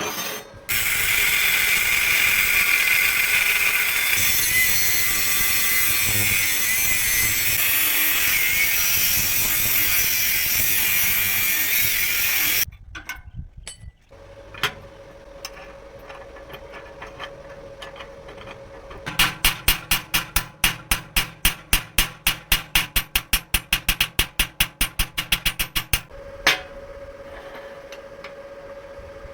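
A power tool running on metal with a loud, steady hiss for about twelve seconds, then stopping. A quieter steady hum follows, and later a run of sharp, evenly spaced clicks, about five a second, lasts about seven seconds.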